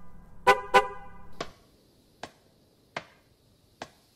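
A car horn beeps twice in quick succession, followed by faint, sharp clicks spaced evenly, a little more than one a second.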